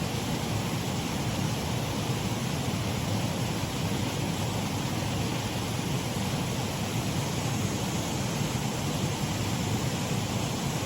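Shallow waterfall on a mill race stream, water running steadily over it in an even rush.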